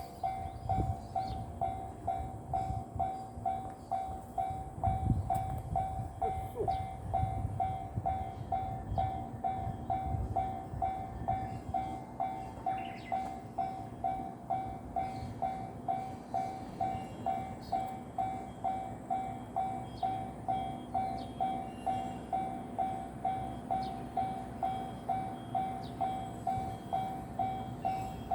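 Japanese level-crossing warning bell ringing steadily, about one and a half dings a second, as a JR Kyushu 813 series electric train passes with a low rumble that is loudest about five to ten seconds in.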